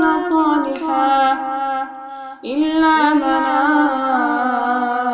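A woman chanting Quran recitation, holding long drawn-out vowels with slow melodic pitch turns. She breaks off briefly for a breath about two seconds in, then takes up the chant again.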